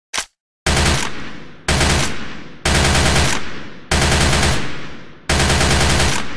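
IMI Uzi submachine gun firing short fully automatic bursts: a brief sharp report right at the start, then five bursts about a second apart, each dying away after it.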